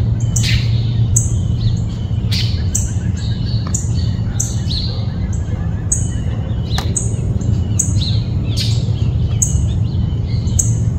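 Birds chirping over and over, short high calls that fall in pitch, over a steady low hum. A few sharp clicks come from plastic air-pump nozzle attachments being handled.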